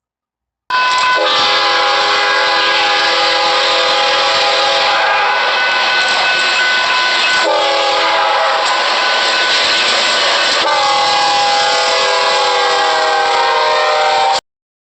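Locomotive multi-chime air horn sounding one long continuous blast of several tones at once over rumbling noise. It starts about a second in, the chord shifts about halfway and again later, the tones sag slightly lower near the end, and it cuts off suddenly.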